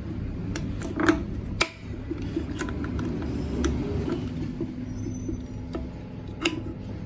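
Scattered metal clicks and clinks of drum brake shoes and their return springs being handled and fitted, over a steady low rumble.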